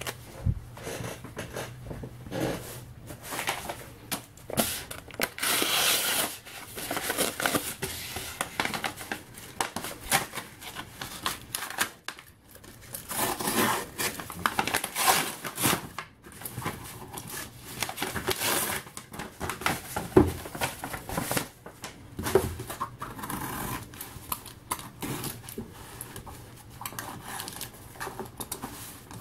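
A small knife cutting and scraping into a taped-up cardboard mailer, with packing tape tearing and the cardboard crinkling, in irregular bursts.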